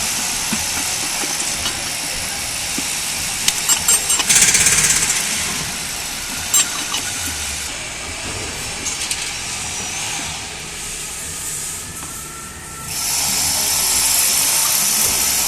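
Steady hiss of compressed air in a workshop, with scattered metal clicks and knocks from gearbox parts being handled. The hiss surges about four seconds in, drops lower for several seconds, then comes back louder near the end.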